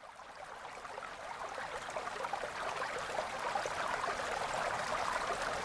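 A steady crackling, hissing noise with many small ticks, fading in from silence and growing slowly louder.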